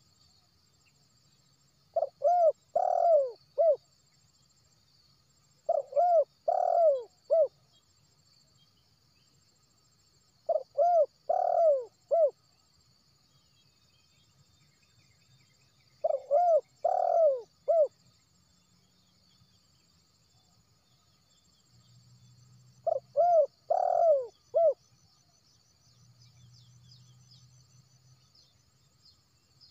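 Spotted dove cooing: five phrases of about four short coos each, repeated every four to six seconds.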